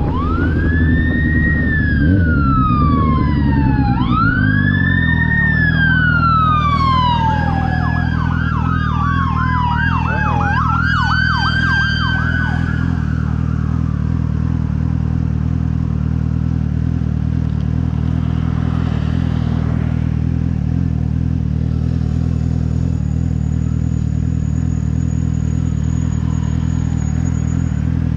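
Fire engine sirens wailing up and down, switching to a rapid yelp about eight seconds in, then fading away around thirteen seconds in. A motorcycle engine runs underneath, settling into a steady idle after about five seconds.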